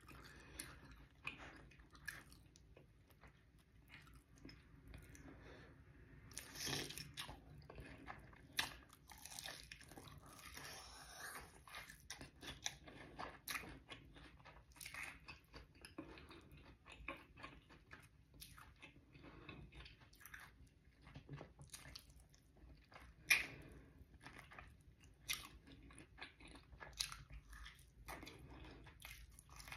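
Close-miked chewing and biting of crispy, sauced fried chicken wings: faint, irregular crunches and mouth clicks, with a few louder crunches now and then.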